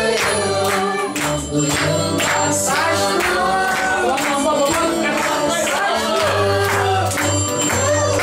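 Music with singing over a steady percussive beat and a sustained bass line.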